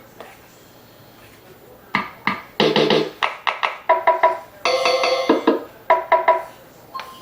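Casio MT-520 electronic keyboard played in a quick run of short, clipped notes and chords with sharp percussive attacks, starting about two seconds in after a quiet pause.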